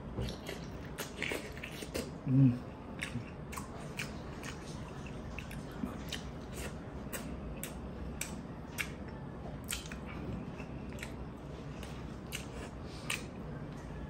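Close-up eating sounds of someone chewing and sucking on stewed tuna eyes: irregular wet mouth clicks and smacks throughout. A brief, louder low hum comes about two seconds in.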